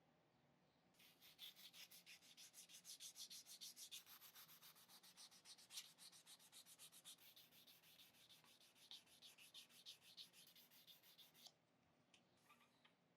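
Sandpaper rubbed by hand over a part of a pocket knife in quick, even back-and-forth strokes, several a second. It starts about a second in and stops near the end.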